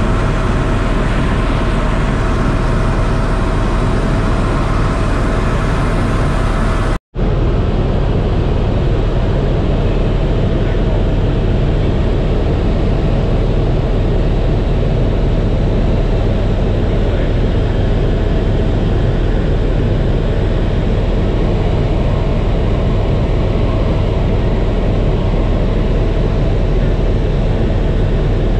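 Tour helicopter's engine and rotor noise heard steadily inside the cabin in flight, with a deep rumble and a faint steady whine. The sound cuts out for an instant about seven seconds in, then carries on unchanged.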